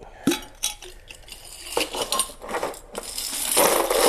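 Loose metal screws and bolts clinking in a glass mason jar, a few separate clinks, then a long clattering rush as they are poured out of the jar from about three and a half seconds in.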